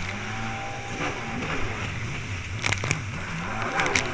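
Stand-up jet ski's engine running under throttle, its pitch rising and falling through a hard banked turn, over the rush of water and spray. A couple of sharp slaps come about three seconds in and again near the end.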